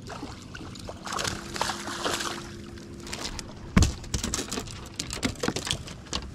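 Water splashing and trickling for a couple of seconds, then a sharp knock about four seconds in and scattered clicks and knocks as a just-landed bass is handled in a fishing boat.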